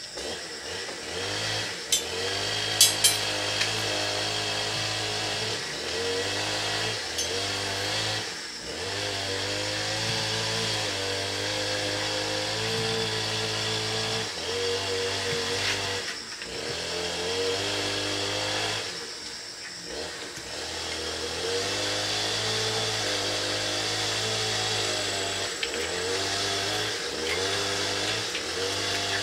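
A small engine-powered tool running, its pitch stepping up and down as its speed changes, easing off briefly a few times. A few sharp clicks sound a couple of seconds in.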